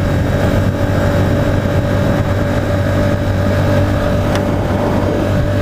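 Honda CBR125 motorcycle's single-cylinder engine running at steady revs while riding, with a constant engine note and rushing wind noise.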